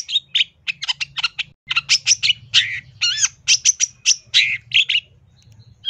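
Long-tailed shrike (cendet) singing fast, a varied run of harsh chattering notes mixed with arched whistles at several notes a second, breaking off about five seconds in.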